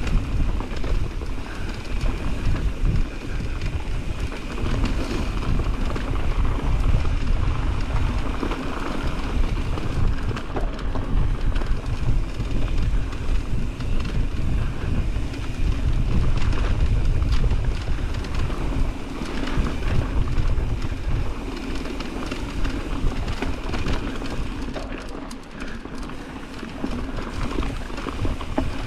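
Mountain bike riding down a dirt singletrack: a steady rumble of tyres on dirt and wind on the microphone, with many small rattles and clicks from the bike over rough ground.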